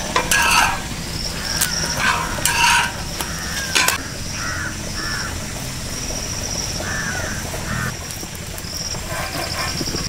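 A metal spatula scrapes and clicks against a large flat iron griddle over a wood fire, with the food frying on it. Several sharp scrapes come in the first four seconds. After that, crows caw in pairs of short calls.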